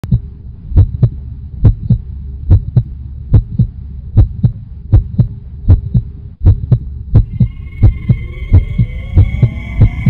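Soundtrack intro: a loud, heartbeat-like double-thump beat, a pair of low thumps about every second, over a steady low hum. About seven seconds in, high steady synth tones come in, and rising tones build under them toward the end.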